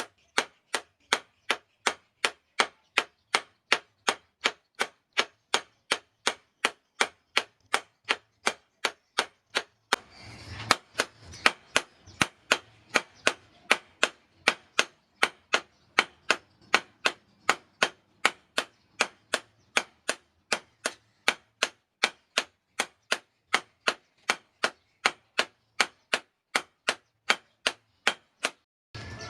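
Hammer blows on steel while a knife blade is forged, struck in a steady, even rhythm of about three a second with no pause. Each blow is a sharp, ringing strike.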